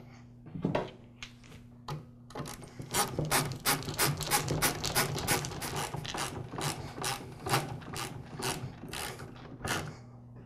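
Ratcheting hand screwdriver clicking as it drives screws into the plastic top handle of a miter saw. A few scattered clicks at first, then a steady run of about three to four clicks a second that stops shortly before the end.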